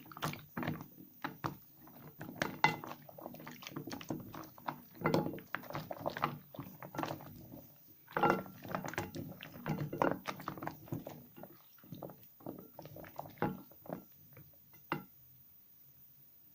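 Soaked soap scraps squished and lathered by hand: irregular wet squelches and crackles in uneven clusters, quieter near the end.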